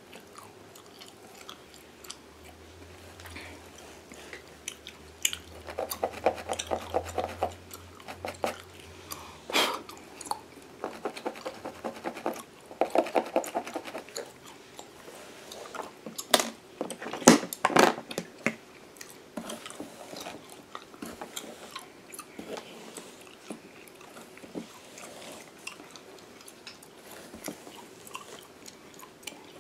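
Gum chewed close to the microphone, with wet smacks and sharp clicks, along with scratching of a fine-toothed comb and fingernails through a mannequin head's hair. Stretches of fast, dense ticking come about six seconds in and again around eleven to fourteen seconds in, and the loudest clicks fall in the second half.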